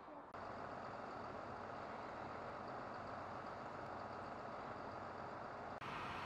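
Steady noise of a vehicle engine idling, starting abruptly and changing abruptly again near the end.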